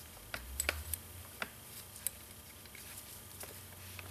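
Faint, scattered clicks and taps of metal on metal as a hydraulic pump regulator is pushed against its spring preload and shifted into line with the bolt holes on the pump housing, with about half a dozen sharp ticks at uneven intervals.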